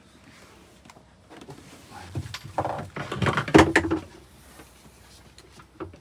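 A wooden cabinet drawer and panel being handled: a cluster of knocks and rattles between about two and four seconds in, loudest near the middle.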